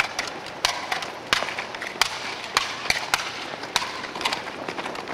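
Skip-It ankle toy in use: its plastic ball hits the asphalt with a sharp clack roughly every half second, in an uneven rhythm.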